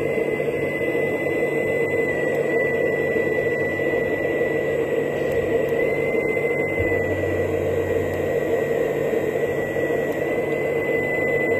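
A 1/14-scale hydraulic RC bulldozer model running: a steady high whine over a constant mechanical hiss. The whine's pitch shifts slightly a few times as the load changes, and a low hum comes in briefly past the middle.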